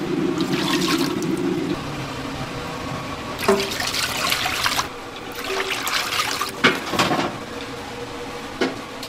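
Water poured from a stainless steel pot into a large, shallow stainless steel pan, splashing in two pours about halfway through, followed by a few sharp knocks of metal.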